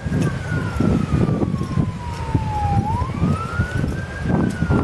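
Emergency vehicle siren wailing: its pitch rises quickly and falls slowly, repeating about every four seconds. Low rumbling noise runs underneath.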